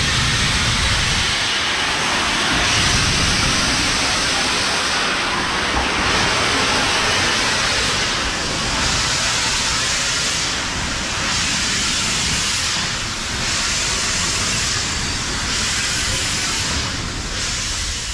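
LNER B1 4-6-0 steam locomotive Mayflower standing at the platform, blowing off steam in a loud, steady hiss.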